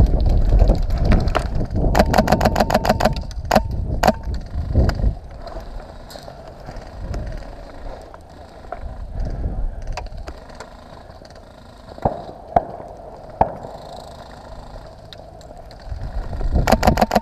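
Airsoft gun firing rapid full-auto bursts, about a second long, once a couple of seconds in and again at the end, with a few single shots in between, over a low rumble at the start.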